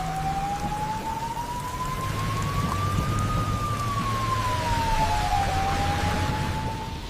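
Steady rain, with a single pure, whistle-like tone that slowly rises over about three seconds and then falls; a second tone rises and overlaps it near the end, over a low hum.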